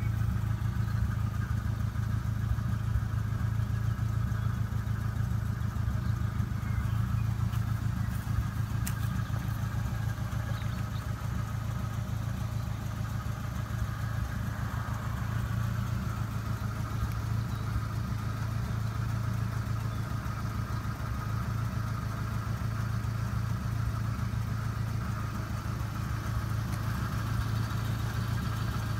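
A 1961 Ford Anglia van's fast-road 2-litre Ford Zetec four-cylinder engine idling steadily.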